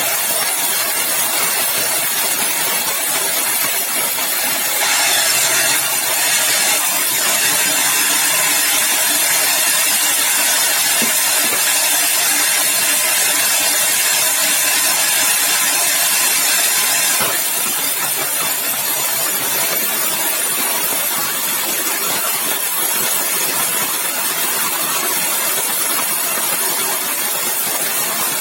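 Sawmill saw running steadily, with a louder, brighter stretch from about five seconds in until about seventeen seconds as it cuts through yellow balau (bengkirai) timber.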